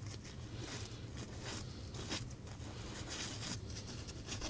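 A tissue wiping and rubbing over the exposed speaker drivers and plastic housing of an opened JBL Flip 4 Bluetooth speaker, making repeated short scratchy strokes at about two a second.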